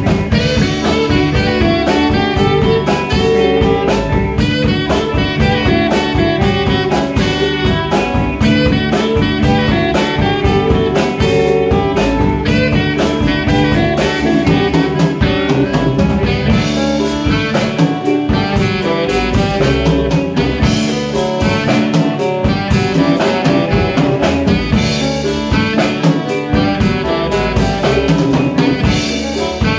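A live jazz band playing: alto and tenor saxophones sounding together over drum kit, hand percussion, electric guitar and bass guitar.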